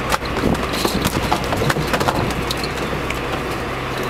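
An engine running steadily, with scattered knocks and clicks over it.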